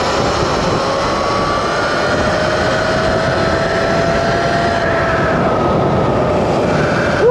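A 72-volt Sur-Ron electric dirt bike under way at speed: the electric motor's whine rises slowly in pitch over the first few seconds as it accelerates, then fades about five seconds in, over a steady rush of wind noise.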